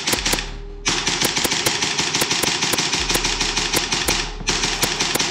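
Airsoft guns firing: a few quick shots at the start, then a long run of sharp, evenly spaced pops at about five or six a second lasting roughly three and a half seconds, and a few more near the end, over a steady hiss.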